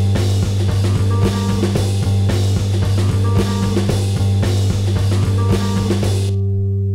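Noise-rock music: drums keep a steady beat over a held low bass drone. Near the end the drums drop out and only the drone carries on.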